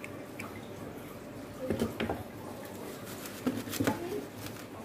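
A paper tissue crumpling and rustling in the hands with small clicks of parts on the workbench, in two short bursts about two seconds apart, as fan parts are wiped clean.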